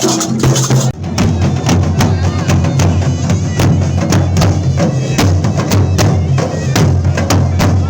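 Tunisian hadra procession music: drums and hand percussion beat a dense, fast rhythm over a steady low drone. The level drops briefly about a second in.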